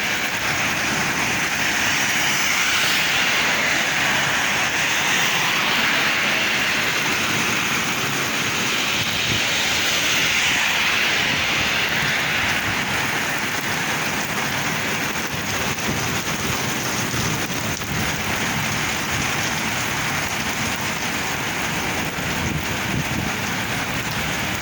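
Heavy rain pouring steadily, a dense even hiss of rain on surfaces during a thunderstorm downpour.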